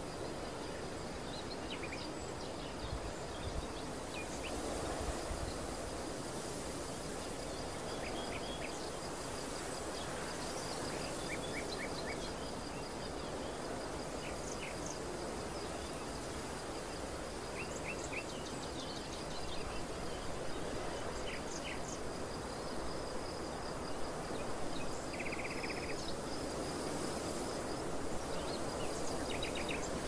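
Open-field ambience: a steady rush of wind with scattered short bird chirps and a faint continuous high trill.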